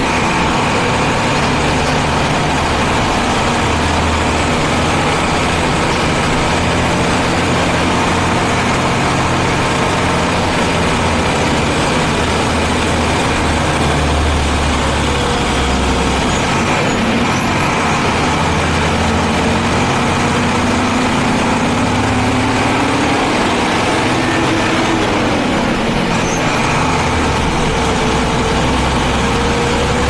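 Mercedes-Benz diesel bus engine running steadily, its speed rising and easing off again a little past the middle.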